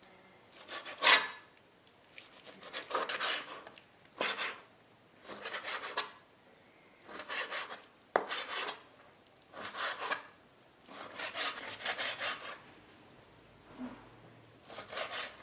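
A kitchen knife makes repeated rasping strokes, roughly one a second, with short pauses between them and a sharp tap about eight seconds in.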